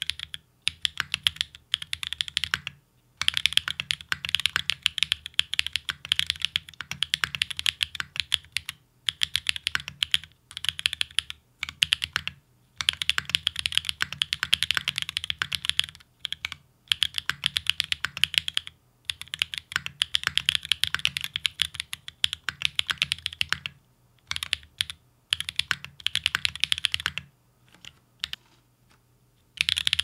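Fast typing on a Geonworks F1-8X custom mechanical keyboard with lubed Everglide Dark Jade Black linear switches and GMK Rudy keycaps. The keystrokes come in quick runs broken by short pauses, thinning to a few scattered strokes near the end.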